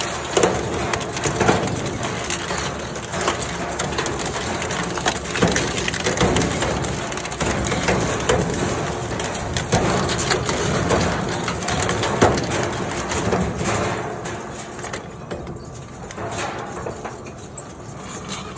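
Industrial shredder crushing and tearing a rusty steel bicycle, with many irregular cracks and clanks as the frame and spoked wheels are broken up. The din eases off somewhat near the end.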